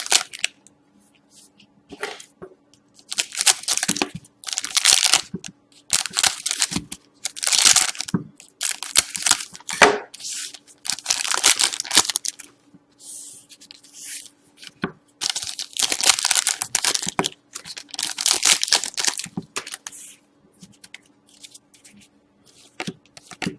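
Sealed hockey trading card packs being torn open and their wrappers crinkled by hand, in a run of irregular rips and crackles with short pauses between them.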